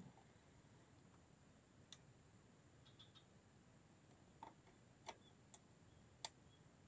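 Near silence broken by five faint, sharp clicks from handling a Nikon D3100 DSLR with a telephoto zoom lens: one about two seconds in, then four in quick succession in the last few seconds.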